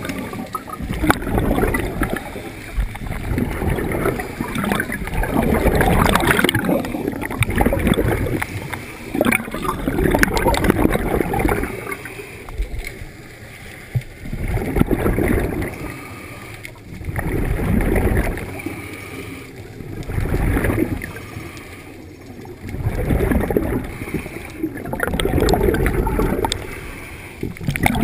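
Scuba regulator exhalations underwater: bursts of bubbles rushing and gurgling in swells every few seconds, one per breath, with quieter gaps between, heard through a GoPro's housing.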